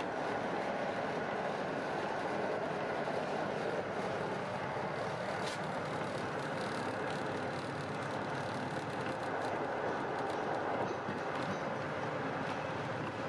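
Steady running noise of a locomotive-hauled passenger train, heard from inside the carriage, with a few faint clicks near the middle.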